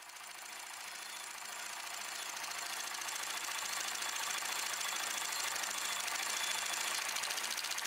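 Hand-cranked mechanism of a Lumière Cinématographe clattering with a fast, even run of ticks as film runs through it. It grows louder over the first few seconds, then holds steady.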